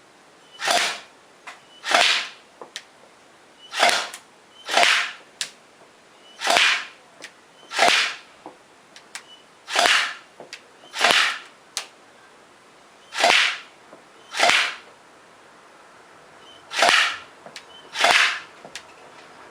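BlackViper M92F electric airsoft pistol firing single shots in pairs, twelve shots in all, each a short sharp burst from its battery-driven gearbox. Fainter sharp clicks fall between some of the shots.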